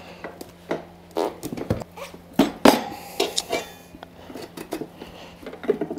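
Steel tyre levers clinking and knocking against a spoked motorcycle wheel rim as the bead of an enduro tyre with a mousse insert is levered on, a run of irregular metallic clicks and knocks.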